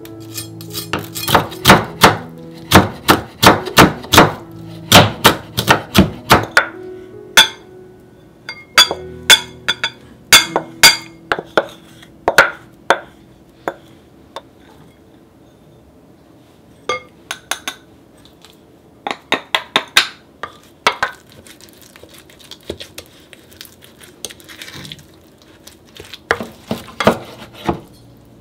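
Kitchen knife chopping on a wooden cutting board in quick runs of sharp taps, with clinks of a knife against a glass mixing bowl partway through.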